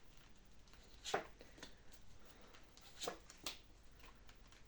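Tarot cards being shuffled by hand: a handful of short, faint swishes, clearest about a second in and twice around three seconds in.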